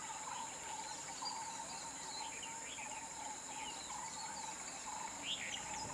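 Insects droning steadily at a high pitch, with a lower pulsing chirr and scattered short bird chirps.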